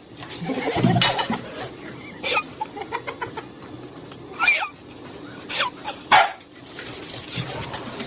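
A dog giving several short barks and yips, spaced a second or more apart.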